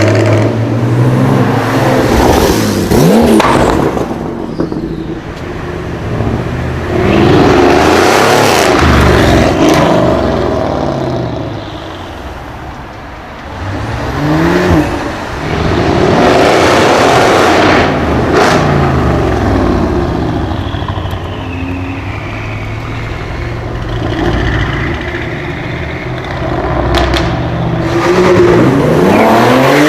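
Modified cars with loud exhausts revving and accelerating past one after another, the engine pitch climbing and falling as each goes by. A couple of sharp exhaust cracks stand out in the middle and near the end.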